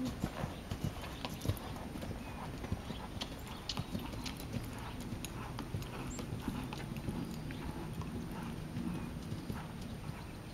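A horse's hoofbeats on a sand arena at a trot, soft and fairly faint, with scattered light clicks.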